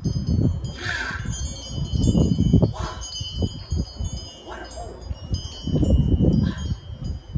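Several high, clear ringing tones that overlap and linger, like a wind chime, over a shifting low rumble of wind on the microphone that swells and eases.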